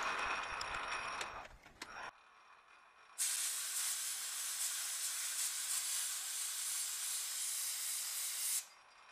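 Metal lathe running with a faint whine, dying away about a second and a half in. After a short quiet, a steady hiss of compressed air blown from a nozzle onto the freshly knurled steel part, lasting about five seconds and cutting off suddenly.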